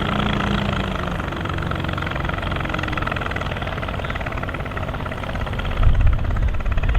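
Volvo BM tractor engine running steadily while ploughing, with an even firing beat; it grows louder and deeper from about six seconds in.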